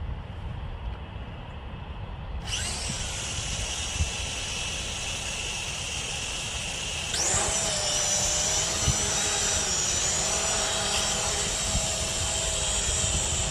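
Quadcopter drone's motors starting with a high whine about two and a half seconds in, then spinning up sharply to a louder, fuller whine about seven seconds in as it takes off. A low rumble runs underneath.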